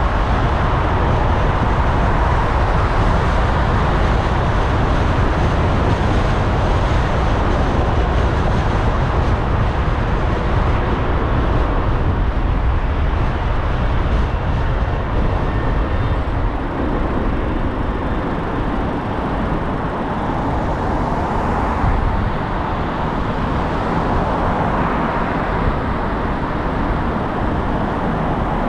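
Steady road noise from a car driving in city traffic: tyre and engine rumble with the hiss of surrounding traffic. The deep rumble eases somewhat about two-thirds of the way through.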